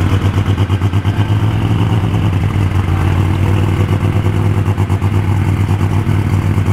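Unlimited super stock pulling tractor's engine running hard at high revs, a loud, steady drone with a rapid, even pulsing.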